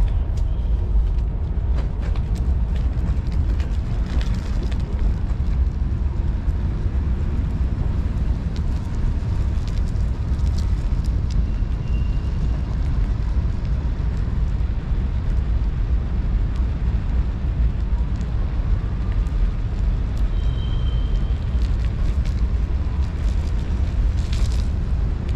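Steady low rumble of wind buffeting the microphone and tyres rolling on pavement while riding a Lime electric scooter, with a few light clicks from bumps in the path.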